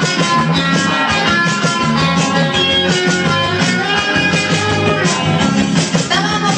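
Dance music with a steady beat, played loud over a DJ's party sound system.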